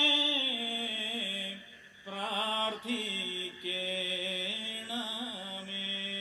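Syriac Orthodox liturgical chant: a voice sings long held notes with short ornamented turns between them and pauses briefly about two seconds in.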